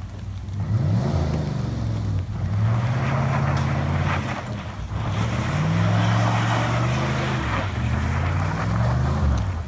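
1988 GMC pickup's engine revving hard and falling back about three times as the truck slides, with a rushing noise alongside.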